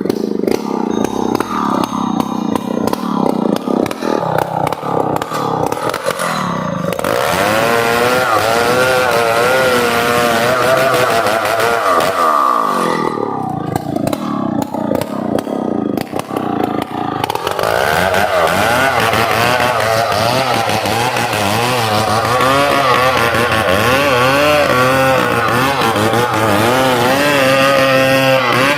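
Chainsaw cutting into a large tree trunk. The engine runs continuously, its pitch wavering up and down as it bogs under load and picks up again.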